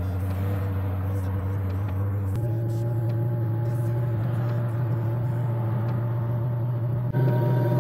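Cheap Chinese VEVOR diesel parking heater running during start-up, its blower fan and burner giving a steady hum with a rush of air. The hum steps up in pitch about two and a half seconds in and gets louder about seven seconds in as the heater ramps up and warms.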